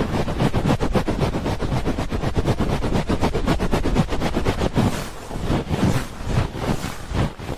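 ASMR 'helicopter' ear rubbing: hands rubbing rapidly over the microphone's ears, giving a fast, rhythmic fluttering beat of many strokes a second. About five seconds in, the strokes turn slower and softer.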